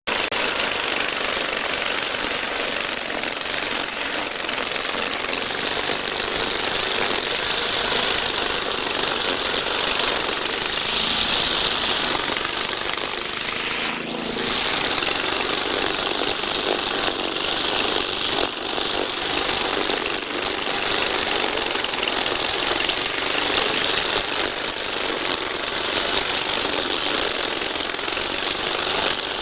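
Cub Cadet wheeled string trimmer's Kohler four-stroke petrol engine running steadily at working speed while the machine cuts tall grass, with a rattly mechanical clatter. The sound dips briefly about halfway through.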